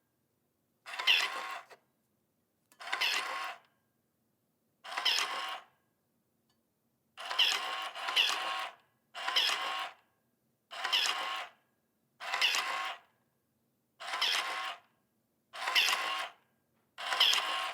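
Automatic electronic soap dispenser's small motor pump running in short bursts of about a second each, starting sharply and stopping, one dispense after another every second and a half or two, about eleven times, with two run almost together near the middle.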